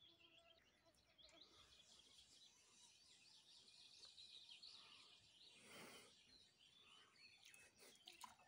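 Faint birdsong: many small chirps and trills from songbirds, with a short soft rush of noise about six seconds in.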